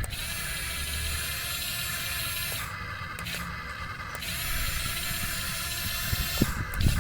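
Small electric motors and gearbox of a toy remote-control excavator whirring steadily. The whir weakens for about a second and a half, a little under three seconds in, then picks up again.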